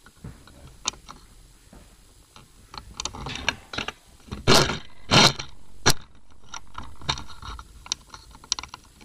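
Handling noise from filming gear close to the microphone: scattered clicks, taps and rustles, with three louder, short scuffs about halfway through.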